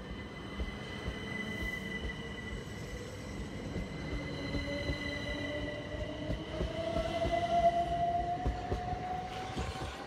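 Southern Class 377 electric multiple unit pulling out of the station, its traction motors whining in a tone that rises slowly as the train gathers speed, over a steady high-pitched whine and the clicking of wheels on the rails.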